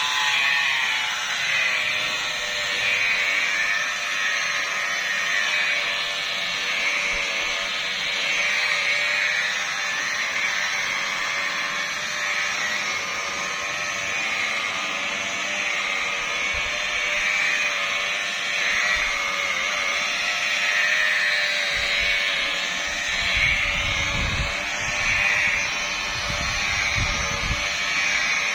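Electric car polisher running steadily on a car bonnet during the first polishing step, with a constant whine. A low rumble joins in during the last few seconds.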